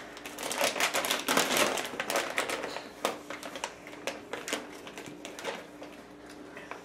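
Plastic snack bag of Goldfish crackers crinkling as it is handled. There is a dense run of crackles that thins out after about three seconds.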